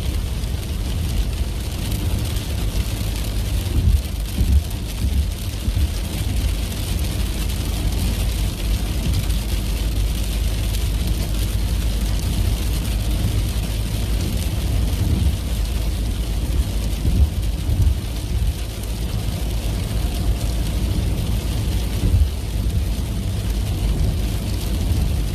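Inside a moving car's cabin in rain: a steady low rumble of engine and tyres on the road, with the hiss of rain on the windscreen.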